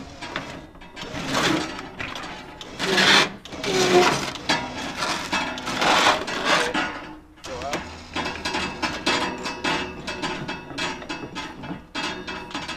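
Sawmill packing being handled on a pallet: cardboard and wooden crating scraped and shifted in loud, irregular bursts. This is followed by a run of quick mechanical clicks.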